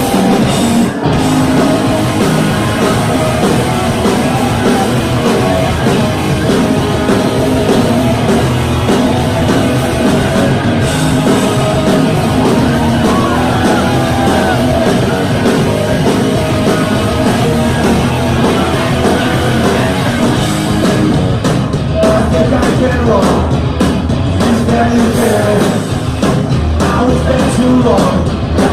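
Punk rock band playing a song live, loud and dense throughout, with sung vocals over the band.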